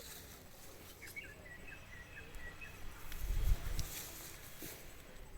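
Quiet riverside outdoor ambience with a bird calling in a run of short high chirps in the first half. A brief low rumble comes a little past the middle and is the loudest sound.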